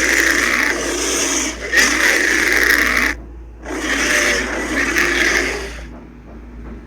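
Bear growling: three long, rough growls with short pauses between, the first already under way.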